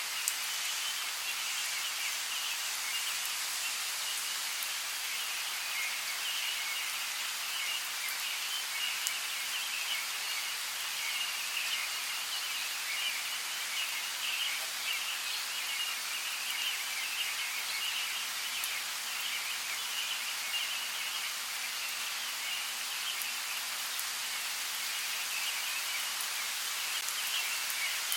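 Steady rainforest rain: an even hiss with scattered drop ticks, over a continuous high, shimmering chirring chorus.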